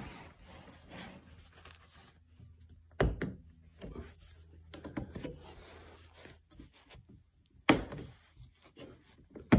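A threshold bar being handled and lined up over a floor gap: rubbing and scraping, with two sharp knocks, one about three seconds in and a louder one near the end.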